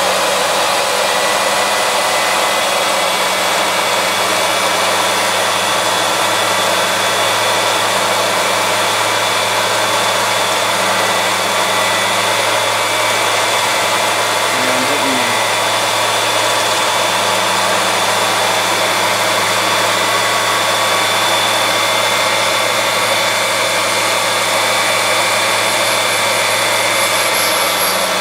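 Old valve refacing machine running steadily, its grinding wheel cutting a Mopar 440 valve spun in the motorised chuck, with a steady whine over the grinding noise. The machine is set below 30 degrees, putting a back cut behind the 45-degree seat face to remove the ridge at the edge.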